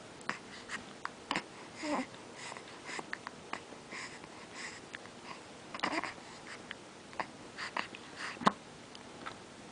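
A baby hiccuping: a string of short, sharp catches in the breath about a second or two apart, with soft breathy baby noises between them. The sharpest and loudest hiccup comes near the end.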